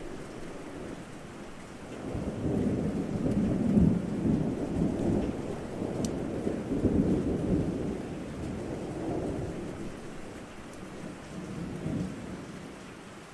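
Rolling thunder rumbling under steady rain. The rumble swells about two seconds in, rolls on in waves and dies away near the end, while the rain hiss continues.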